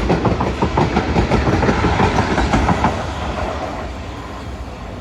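Two-unit Class 450 electric multiple unit passing at speed, its wheels clattering rapidly over the rail joints. The noise fades away after about three seconds as the train leaves.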